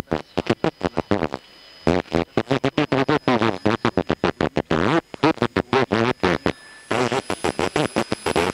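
Fast, stuttering electronic sound: pitched pulses several times a second, in bursts with short breaks.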